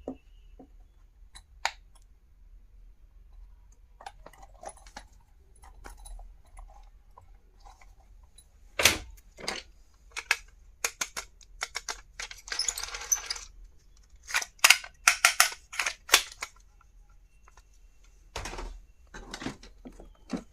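Small hard items being handled and unpacked: scattered sharp clicks and taps that become a quick run of loud clacks about nine seconds in, with a brief rustle of packaging around twelve seconds in.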